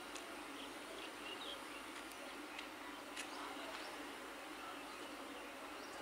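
Faint outdoor ambience: a steady hiss with short, scattered bird chirps and a few light clicks.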